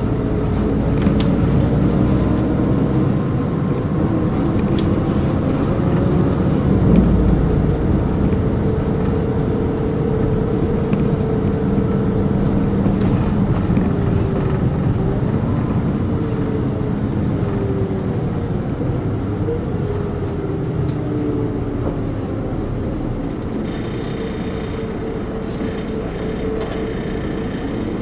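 Volvo D7E six-cylinder diesel and ZF Ecomat automatic gearbox of a Volvo 8700LE city bus running under way, the engine note gliding down and up as speed and gears change. A higher whine comes in near the end.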